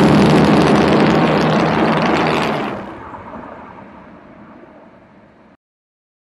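A pack of racing motorcycle engines revving hard off the starting grid, loud, then turning muffled about three seconds in and fading away until it cuts off near the end.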